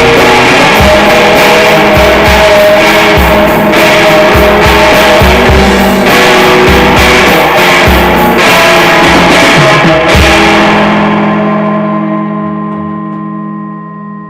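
Rock band of guitars and drums playing loudly; about ten seconds in the drums stop and a final guitar chord is left ringing, slowly fading out.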